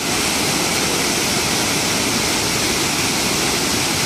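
Water of the Lech river pouring over a stepped weir and churning below, a steady, even rush of falling water.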